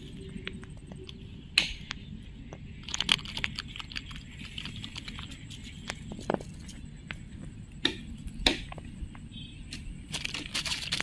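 Dry straw and grass crackling and snapping in sharp, irregular bursts as a small hooked fish is handled and worked off the hook on the ground, over faint steady background noise.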